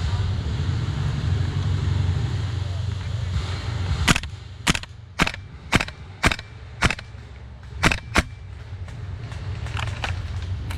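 Airsoft rifle fired in single shots: about eight sharp cracks in four seconds, roughly half a second apart, with a brief pause before the last two. Before the shots there is a steady low rumble of wind on the microphone.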